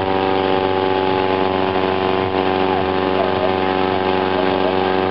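A small engine running steadily at a constant speed, giving an unchanging hum.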